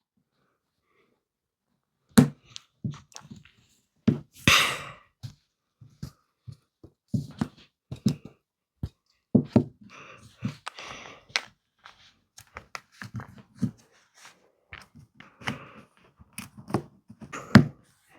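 Plastic Mathlink cubes being handled and snapped together: an irregular run of short clicks and knocks, with brief rustling, starting about two seconds in.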